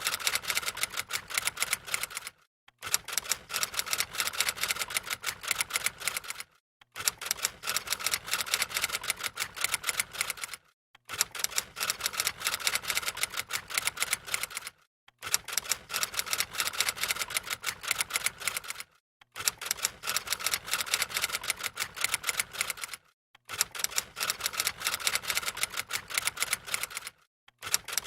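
Typewriter typing: runs of fast keystroke clicks, each about four seconds long, broken by short silent pauses about every four seconds.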